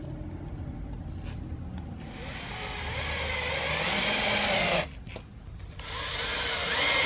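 Cordless drill driving 3/4-inch wood screws through a steel strap hinge into half-inch plywood, without pilot holes. The motor whine builds and wavers as each screw bites and stops about five seconds in, then a second screw is driven a second later.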